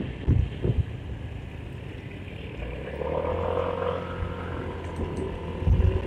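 Motorcycle riding in traffic: wind buffeting the helmet-mounted microphone over the low sound of the engine. A held, slightly wavering tone rises out of it about halfway through and lasts about two seconds.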